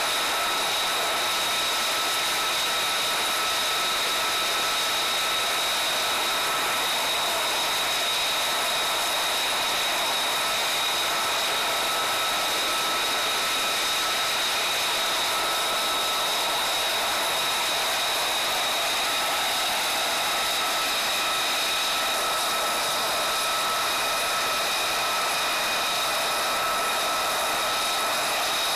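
Jet engine idling on the ground: a constant high-pitched turbine whine with several steady tones over a rushing hiss.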